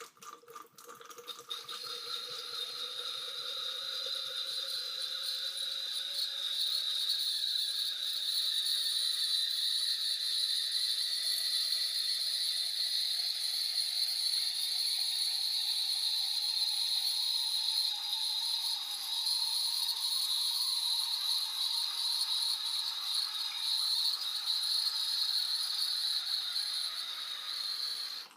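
Red wine poured from a bottle through a wine aerator: a steady hissing rush of liquid and drawn-in air. It builds over the first few seconds, carries a faint tone that rises slowly through the pour, and stops abruptly near the end.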